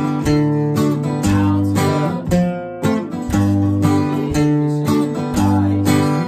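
Two acoustic guitars played together, strumming chords in a steady rhythm of about two strokes a second, the chords ringing on between strokes.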